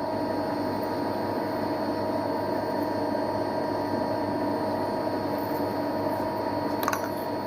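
Metal lathe running under a steady cut: an even machine hum with several constant tones over a noisy bed. The cut is running clean, with no squealing and no chatter, the sign of well-set speeds and feeds.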